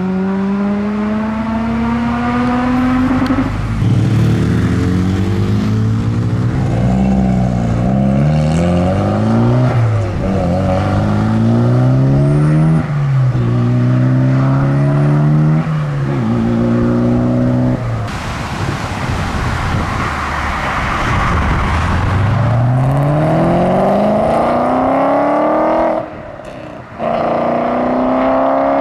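Modified car engines accelerating hard, revving up through the gears. The pitch climbs and falls sharply at each shift, about half a dozen times, and another car winds up near the end.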